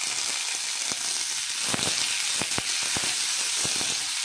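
Crushed garlic, shallots and thuthuvalai leaves sizzling in hot oil in an iron kadai as they are stirred on high flame: a steady high hiss with a scatter of sharp clicks.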